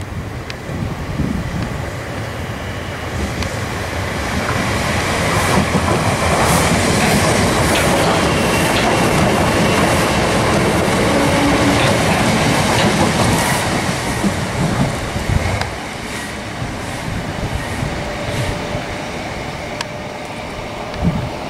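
Class 387 Electrostar electric multiple unit passing along the platform: wheels clicking over the rail joints with a faint steady whine. It builds for the first several seconds, is loudest through the middle, then fades as the train draws away.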